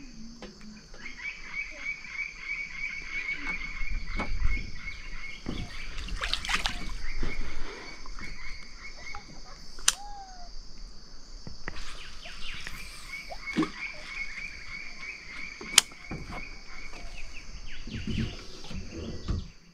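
A frog calling in a rapid pulsed trill, two bouts of several seconds each, over a steady high insect buzz. Two sharp clicks are heard, one about midway and one near the end.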